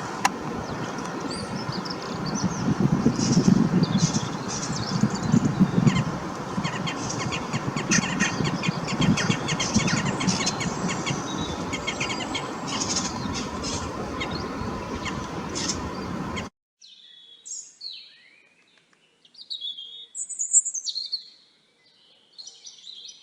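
Small birds chirping and twittering over a steady low rumble of wind on the microphone. About sixteen seconds in, this cuts off abruptly and clean recorded birdsong follows: several short, high, separate phrases against a quiet background.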